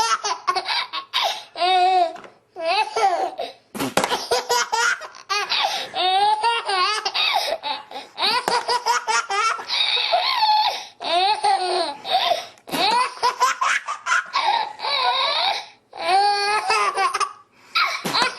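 A baby laughing hard in repeated bouts of quick, high-pitched laughs, with a few short pauses between bouts.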